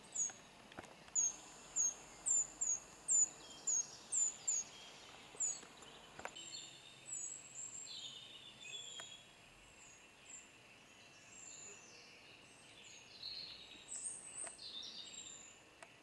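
Eurasian treecreepers giving thin, very high, short calls, repeated about once or twice a second and loudest in the first six seconds. After that the calls come softer and more scattered, with some lower-pitched calls mixed in.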